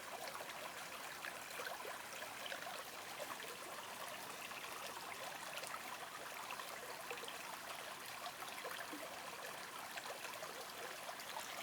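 Spring water trickling and flowing steadily, a continuous light rush with many small splashes.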